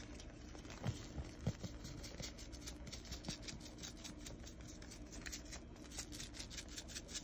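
Crinkling and scratching of a sazón seasoning package being opened by hand. There are a couple of soft knocks about a second and a second and a half in, and a run of quick crackling ticks in the last couple of seconds.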